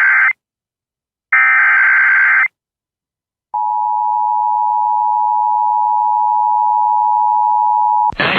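Emergency Alert System signals: the end of one SAME header data burst, a second screeching data burst of about a second beginning about a second and a half in, then after a short gap the steady two-tone EAS attention signal for about four and a half seconds. It cuts off near the end as a recorded voice begins the severe thunderstorm warning.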